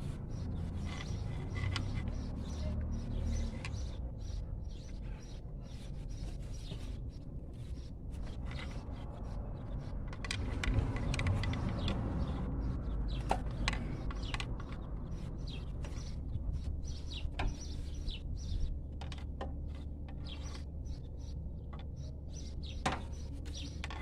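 Scattered metallic clicks, knocks and scrapes of a pry bar and hand tools working an alternator loose from the top of a car's engine bay, over a steady low hum.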